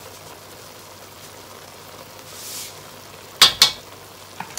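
Chicken strips frying in a pan with a steady sizzle. About three and a half seconds in come two sharp metal knocks, a spoon against the pan.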